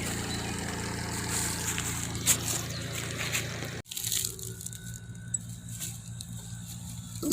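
Small plastic portable washing machine's spin-dryer running steadily, its motor humming as the spinning cylinder wrings water out of clothes. The sound cuts off abruptly about halfway, and a quieter hum carries on after it.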